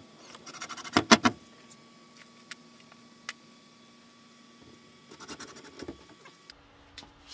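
Handling noise at a hardboard pegboard panel: bursts of clicks and rattles, loudest about a second in, a few single ticks, then another short run of rattling near the end.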